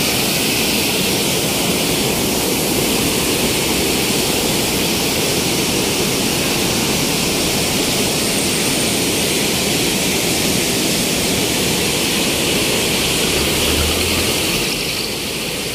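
Floodwater pouring over a river barrage's concrete weir and rushing through its gates: a steady, loud rush of water that fades near the end.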